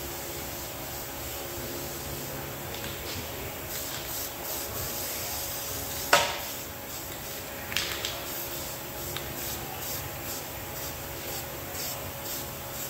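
A 40-horsepower DC motor running on test, giving a steady whir with its carbon brushes rubbing on the commutator. There is a sharp crack about six seconds in, as the brushes spark at the commutator, and a smaller double crack near eight seconds.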